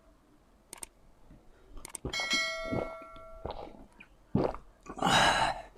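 A glass jar clinks once, about two seconds in, and rings on for about a second and a half. Short knocks and drinking sounds follow, with a brief noisy gulp or breath near the end.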